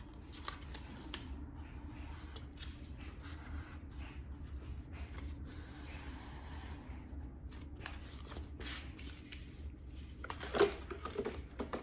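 Light rustling and small plastic clicks from handling a new disposable mop pad and fitting it to a Roborock S8 robot vacuum, with a couple of sharper clicks near the end, over a low steady hum.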